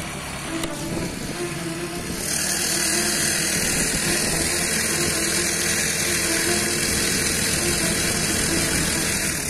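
Small petrol engine of a motorised mountain bike running steadily under way. About two seconds in, a loud rushing hiss of wind and road noise joins it and holds as the bike travels at speed.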